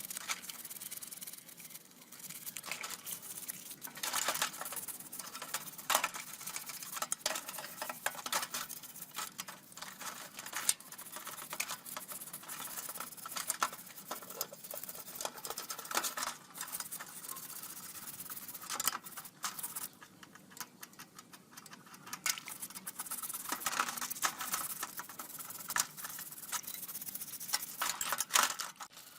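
Irregular clicking, tapping and scraping of small hand work on a toy car model: tools and fingers handling small metal and plastic parts.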